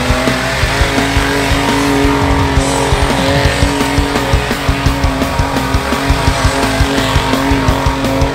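Background music with a steady beat, over the engine of an off-road VW Beetle rat rod revving as it spins donuts in mud.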